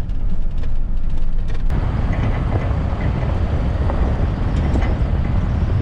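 Pickup truck driving on a gravel road: steady rumble of road and wind noise, first muffled inside the cab, then, a little under two seconds in, louder and hissier from outside the truck.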